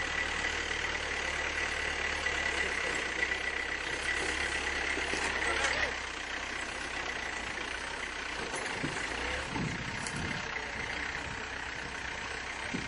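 SUV engine running at low speed with a steady low rumble, which drops in level about halfway through.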